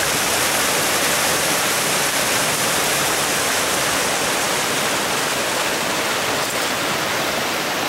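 Mountain stream rushing steadily over rocks in small cascades.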